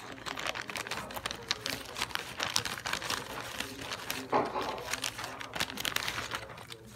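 Clear plastic bag of jigsaw puzzle pieces crinkling as it is handled: a dense run of small crackles, with a louder rustle about four seconds in.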